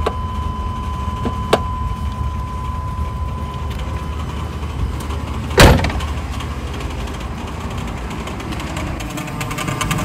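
A Chevrolet Astro's V6 engine idling, with a steady high tone in the cab that stops about four seconds in, a click, and a loud door slam about halfway through. Near the end the engine sound grows louder with a fast rattle (カタカタ) that comes with the air conditioning on, which the owner thinks may need a new belt and tensioner.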